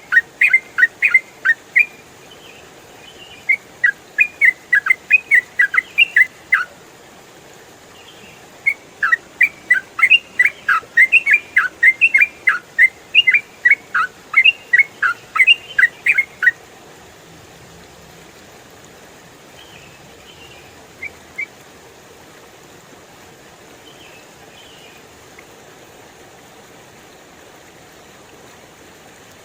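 Yellow-vented bulbul (trucukan) singing long runs of quick, bubbly chirping notes over a steady rush of flowing stream water. The song comes in two long bursts with a short pause between them and stops about two-thirds of the way in, leaving the stream with a couple of faint calls.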